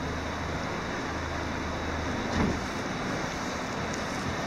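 Steady rushing noise of river water and wind around a boat, with a low steady hum that fades about halfway through and one brief louder thump about two and a half seconds in.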